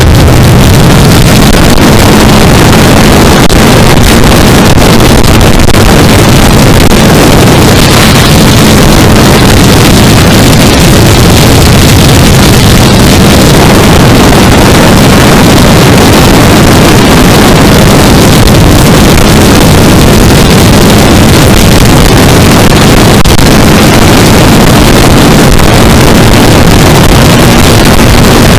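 Yamaha R3's 321 cc parallel-twin engine running at a steady highway cruise, largely buried under loud, constant wind noise on the microphone.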